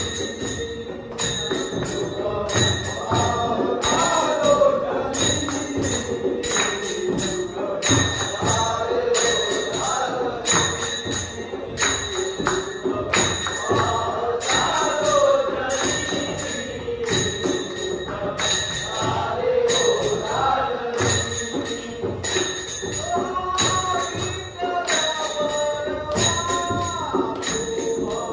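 Group of men singing a Harinam bhajan in chorus to a steady beat of small brass hand cymbals (taal), with a drum on a stand keeping time underneath.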